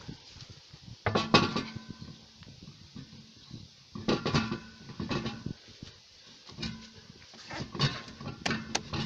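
Metal car parts clanking and rattling as they are handled and fitted, in several short bursts of knocks with a ringing metallic tone.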